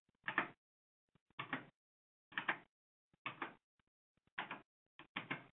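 Computer keyboard keystrokes, pressed slowly one at a time, about one a second, as characters are typed into a text field.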